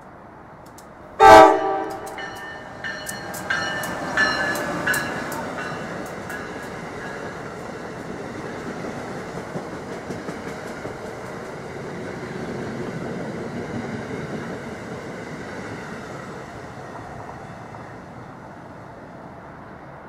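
Amtrak AEM-7 electric locomotive sounding one short, very loud horn blast as it approaches, followed by a few sharp clacks. Then the steady rumble of its Amfleet train passing, fading near the end.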